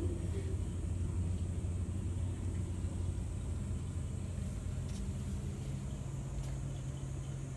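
A steady low rumble with a droning hum that shifts a little higher about halfway through.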